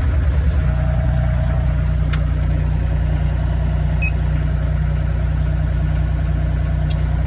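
Diesel engine of a 4-ton mini excavator idling steadily.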